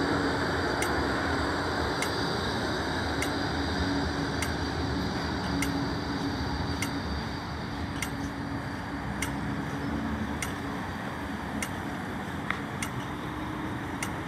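Steady hum of E-class trams at a stop, one pulling away and another standing at the platform, with road traffic. A short sharp tick repeats about every 1.2 seconds.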